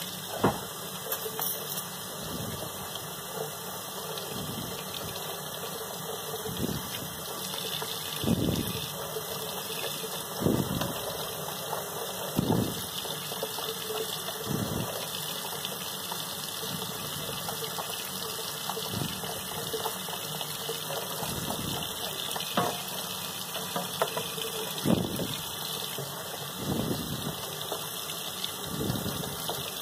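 Kitchen faucet running a steady stream into a stainless steel sink, with irregular thuds and splashes as a small bluegill is rinsed and handled under the water.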